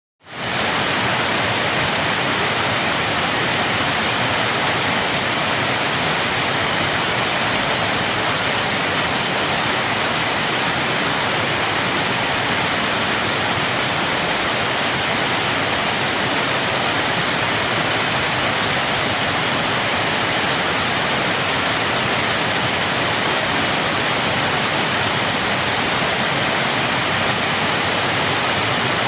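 Waterfall: a steady, even rush of falling water that fades in quickly at the start.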